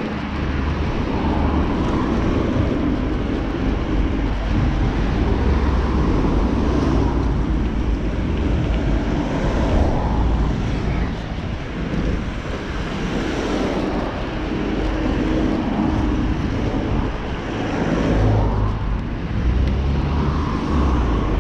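Riding noise from a moving vehicle: wind on the microphone over an engine's low running note that rises and falls, with road and traffic noise.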